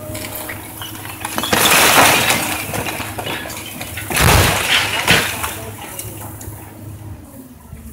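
The upper part of an old brick chimney breaking apart and collapsing as an excavator pushes it over: a long crash of crumbling, clattering brick about a second and a half in, then a heavy thud with more bricks tumbling a little after four seconds. The excavator's diesel engine runs steadily underneath.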